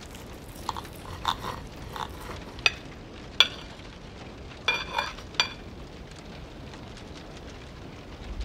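Metal knife and fork clinking against a plate while cutting into chicken in sauce: a string of short taps, a few ringing briefly, over a faint steady hiss. The clinks stop about five and a half seconds in.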